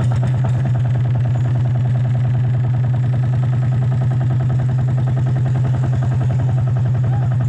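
Engine of a fiberglass boat running steadily with a rapid, even beat and a strong low hum.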